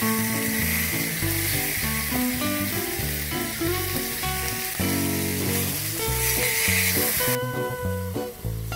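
Fallow deer steaks sizzling loudly as they sear in lard and butter on a hot barbecue plate, over background music; the sizzle cuts off abruptly near the end, leaving the music.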